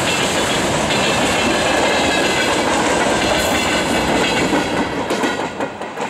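Freight wagons (tank cars and boxcars) rolling past close by, their wheels clattering over the rail joints. The noise falls away about five seconds in as the end of the train goes by, with a few last sharp clacks.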